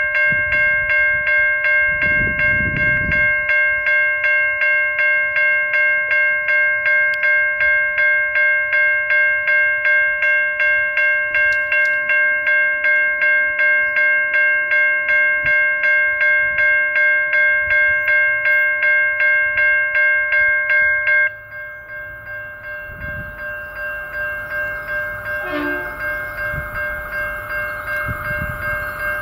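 Railway level crossing warning bell ringing at a steady beat of a bit over two strokes a second. About 21 seconds in it drops sharply to a quieter ring that carries on to the end.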